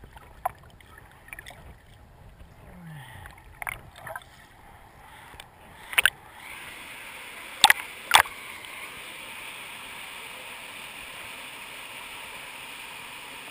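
River water heard from a camera held underwater: a muffled churn with scattered small clicks and knocks as people wade through the pool. About six seconds in the sound changes to a steady rush of turbulent whitewater, with a few sharp knocks around the change, two of them close together.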